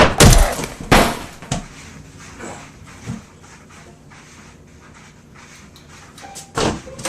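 A quick run of loud thumps or crashes, four strikes within the first second and a half, then quiet, with one more strike about six and a half seconds in.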